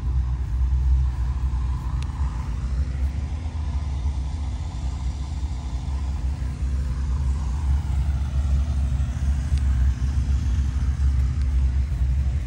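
A steady, low, even engine rumble, unchanging throughout.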